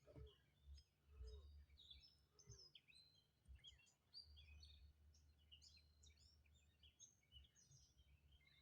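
Faint birdsong: many short chirps and whistles from several birds, over a low steady hum.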